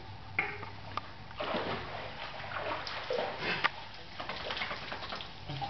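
Pool water splashing and sloshing as a dog swims and climbs out up the pool steps, in irregular bursts that are busiest in the middle.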